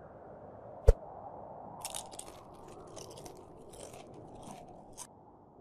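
Crunchy munching sound effect, a run of quick bites and chews from about two seconds in, as of cookies being eaten. About a second in comes one sharp thump, the loudest sound, over a steady low rushing noise.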